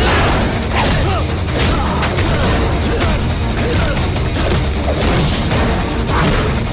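Action-film fight soundtrack: a background score with a steady low drone, under repeated punch and crash impact effects.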